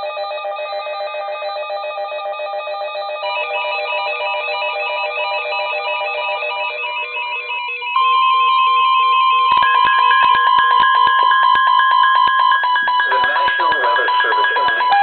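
Weather radio alert alarm for a Severe Thunderstorm Warning: layered electronic beeping tones that change pattern a few times. About eight seconds in it gets louder as a steady alarm tone comes in, with rapid ticking from about ten seconds on.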